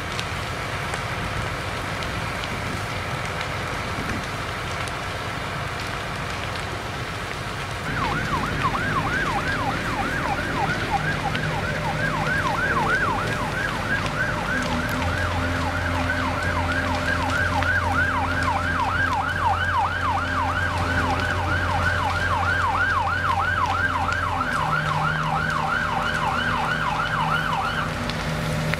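Emergency vehicle siren in a fast yelp, sweeping up and down several times a second. It starts about eight seconds in and stops near the end, over the crackle of a large fire and a steady engine hum.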